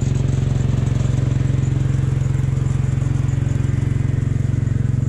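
Engine of a small garden tractor running steadily at low speed with a fast, even beat, as it slowly tows a trailer loaded with logs.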